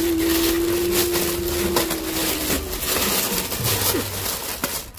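Clear plastic bag rustling and crinkling as it is pulled off an audio mixer. A steady hummed-sounding tone fades out about halfway through.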